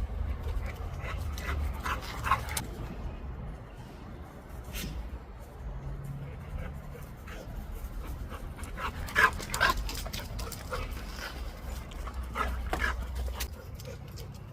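XL American Bully dog making short vocal sounds in three brief clusters, the loudest about two-thirds of the way through.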